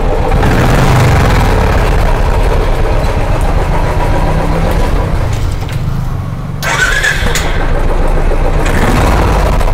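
Royal Enfield single-cylinder engine idling, dying away about five and a half seconds in, then started again on the electric starter about a second later and running on. The starter is working properly on its newly replaced starter bearing.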